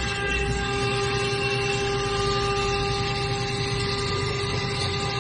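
Water-cooled spindle of a KT-1325 CNC router running at a constant speed, a steady high whine, as the bit routes grooves into a wooden board.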